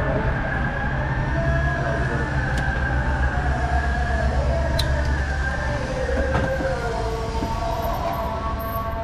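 Steady low vehicle rumble with several wavering whining tones above it; the low rumble fades out about seven seconds in.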